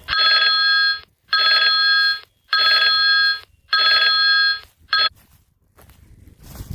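Phone ringtone: four loud electronic rings of about a second each, each a chord of steady tones, then a short fifth ring cut off.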